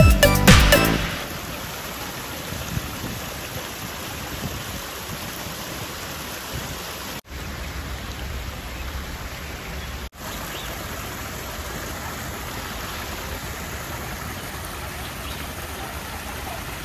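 Small rockery waterfall pouring over stones into a pond: a steady rushing, splashing of falling water. Background music cuts off about a second in, and the water sound drops out briefly twice.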